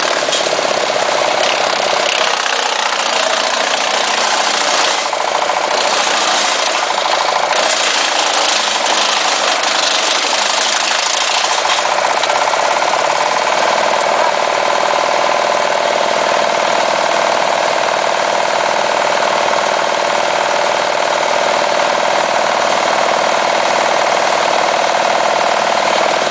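WC-8 PTO wood chipper running on a tractor's power take-off, a loud steady machine drone. From about five to twelve seconds in it turns harsher and hissier in spells.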